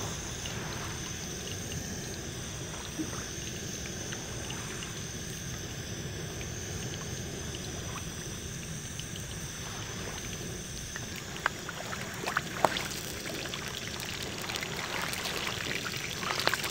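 Shallow sea water lapping and trickling, over a steady hiss, with a few sharp clicks about twelve seconds in and busier crackling near the end.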